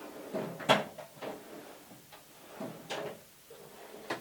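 Metal drawers of a US General mechanic's tool cart, their latches removed, sliding on their slides and shutting, several times over. The loudest is a sharp clack about three-quarters of a second in, with further slides and knocks near one second and near three seconds.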